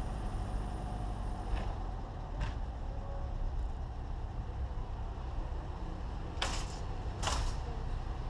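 Small car's engine running at low speed, heard from inside the cabin, with a couple of light ticks early and two short rushing noises about six and seven seconds in.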